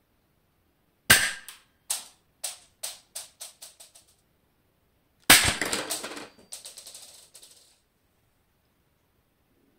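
A Tokyo Marui Walther P38 airsoft pistol fires a 0.12 g BB point-blank into a stack of plastic bottle caps, one sharp shot followed by a run of ticks that come quicker and fainter as the BB bounces away. About four seconds later a Cybergun Colt 1911 A1 on HPA fires a 0.25 g BB, a second shot followed by a longer, denser rattle of bounces.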